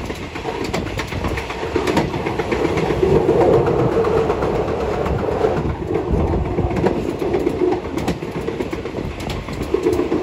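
Passenger train carriage running along the track, heard from the rear of the last car: a steady rumble of wheels on rails with a sharp clack every second or two as the wheels pass rail joints. Around the middle the rumble turns deeper as the wheels cross a steel girder bridge.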